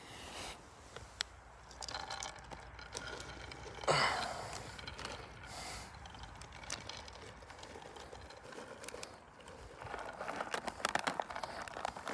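Rustling and crunching of dry leaves and twigs on the forest floor, with scattered crackles and clicks, as the nuts are set out. A louder rustle comes about four seconds in, and the crackling thickens near the end.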